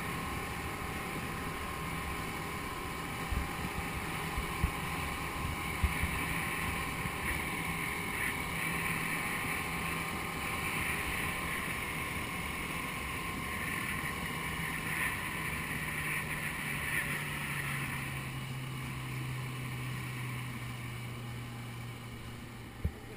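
Motor of a rigid inflatable boat running underway, with water rushing along the hull and wind on the microphone. The engine note drops a little about two-thirds of the way through, and there are a few soft knocks in the first six seconds.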